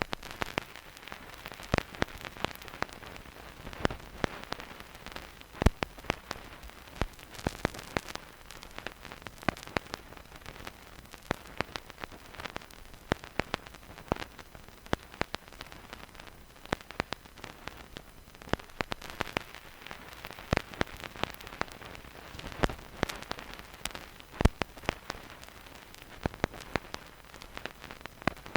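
Vinyl record surface noise with no music: the needle in the groove gives a steady low hiss scattered with irregular sharp pops and crackles, a few of them much louder than the rest.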